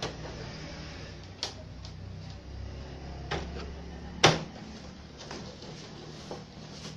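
Hands handling the plastic back cabinet of a CRT television: scattered light clicks and knocks, with one sharper knock about four seconds in, over a low steady hum.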